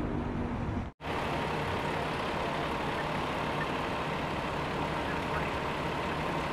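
Steady low hum of an idling vehicle engine over outdoor street noise. The sound breaks off briefly about a second in at an edit cut, then carries on unchanged.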